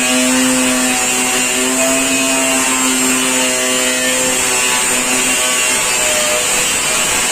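A power tool's abrasive disc cutting steel: a steady, loud grinding whine with a hum that drops away about five seconds in.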